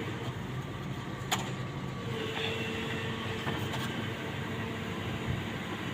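SANY SY75C Pro excavator's diesel engine running steadily, with a sharp metallic click about a second in.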